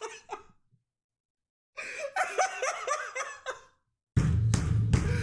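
A man laughing hard, broken off by about a second of dead silence, then laughing again in a high voice. About four seconds in, a loud sound with heavy bass cuts in suddenly.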